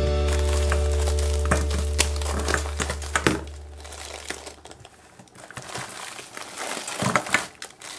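Thin disposable glove crinkling as it is snipped with scissors and peeled off a frozen block of Orbeez water beads, with scattered sharp clicks. Background music holds a low note at first, then fades out a little past halfway.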